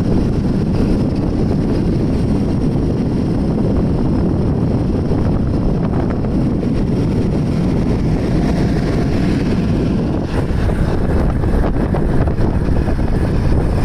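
Scooter riding noise at highway speed: steady, heavy wind buffeting on the microphone over the rumble of the road and the scooter.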